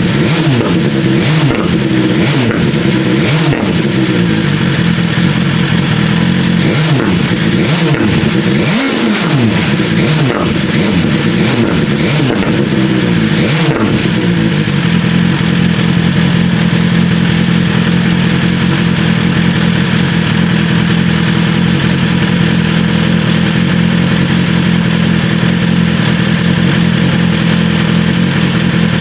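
BMW S1000R inline-four through an Austin Racing V3 Mini slip-on exhaust, stationary and warmed up. It is revved again and again with quick throttle blips, popping and crackling each time the throttle snaps shut. About halfway through it settles to a steady idle.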